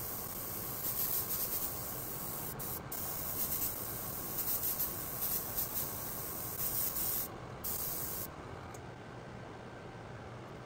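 Airbrush spraying paint onto a 3D print in short repeated bursts of hiss, stopping about eight seconds in.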